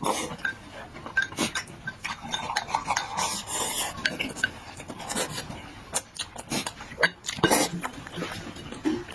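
Eating noises at the microphone: chewing and mouth sounds, with utensils clicking against dishes several times.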